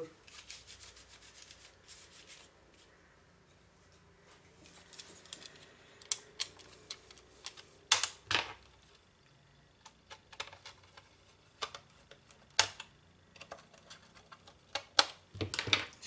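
A laptop's memory-compartment door being fitted back on and pressed into place by hand: scattered light clicks and taps, with the sharpest pair about eight seconds in and a few more near the end.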